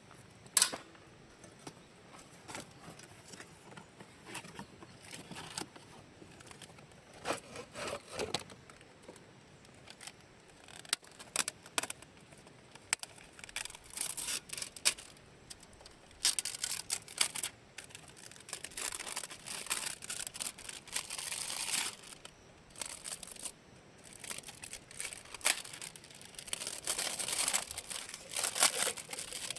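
Rustling and crinkling of things being handled, with scattered sharp clicks and knocks, busier in the second half.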